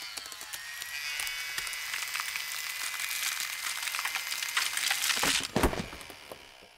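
Whirring and grinding saw blades in a film's sound design: a dense high hiss and whine full of small clicks and scrapes, building in loudness, with two heavy hits about five seconds in before it dies away.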